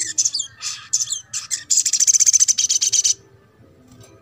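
Olive-backed sunbird singing: a string of sharp, high chirps and short sliding notes, then a fast, dense trill from about two seconds in that stops abruptly after a little over a second.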